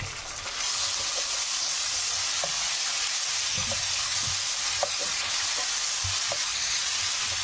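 Ginger and garlic paste sizzling in hot oil among fried onion slices in a pan, stirred with a wooden spoon. The sizzle rises about half a second in and then holds steady, with a few light knocks of the spoon.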